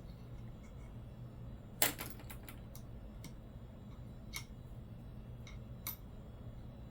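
Light clicks and taps of coins being handled and set down on a hard surface, the loudest a quick cluster about two seconds in, then single ticks every second or so. A steady low hum runs underneath.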